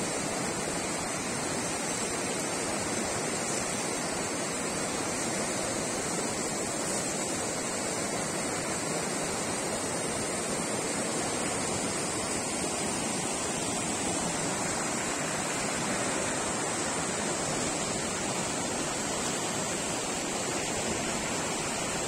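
Steady rush of water from a waterfall and rocky rapids, an even, unbroken noise throughout.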